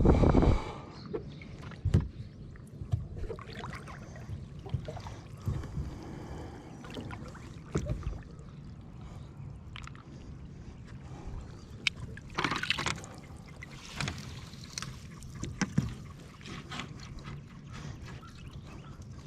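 Water sloshing and splashing around a kayak, with scattered knocks on the hull. There is a loud burst right at the start and more splashing about twelve and fourteen seconds in.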